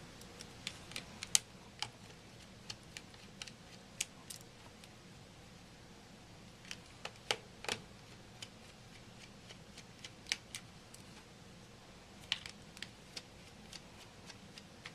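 Small, irregular clicks and taps of a screwdriver and tiny screws against the plastic case of an LG Rumor phone being taken apart.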